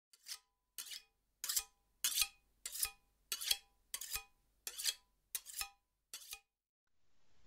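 A steel knife blade scraped again and again along a sharpening steel, about ten even strokes roughly one every two-thirds of a second, each a short metallic swish that rings briefly.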